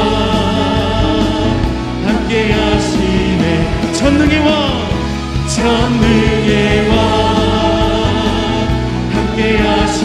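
Church worship music: a congregation singing a Korean praise song together with a worship band.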